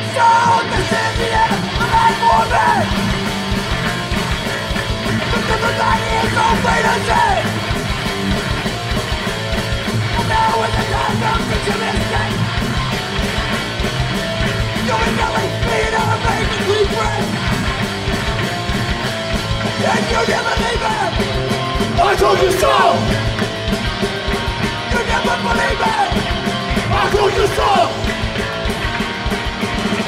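Hardcore punk band playing live at full volume: electric guitars, bass and drums with a singer yelling over them. The full band comes in abruptly at the start, right after a lone strummed guitar.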